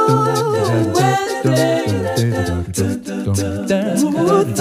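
Background music: a song with a singing voice over a bass line and a steady beat.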